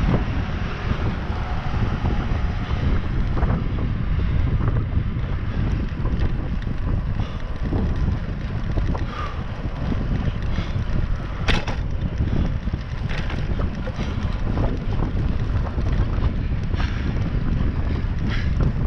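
Wind buffeting the microphone of a GoPro on a moving bicycle, a steady low rumble, with the bike's tyres rolling on an asphalt path. Scattered small clicks and rattles come through, the sharpest about eleven and a half seconds in.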